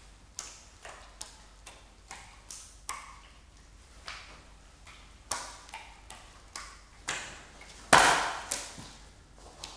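Hearts landing in the hands while being juggled: a run of soft slapping catches, irregular and about two a second, with a louder thud about eight seconds in and another just after.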